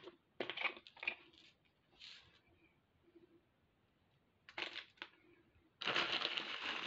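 Short clicks and rustles of bead packets being handled, then, from about six seconds in, a plastic bag of glass beads crinkling as it is picked up and handled.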